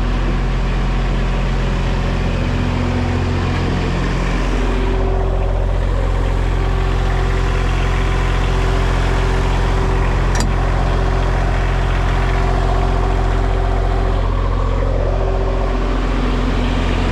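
Diesel engine of a V1000 mini skid steer running steadily, its engine note changing a few seconds in and again near the end.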